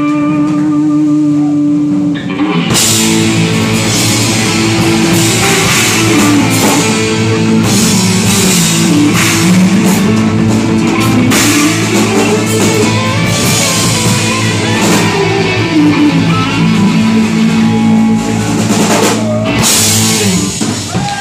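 Live rock band playing electric guitars, electric bass and a Ludwig drum kit. Guitars hold notes alone for the first two and a half seconds, then the drums and full band come in with a steady beat.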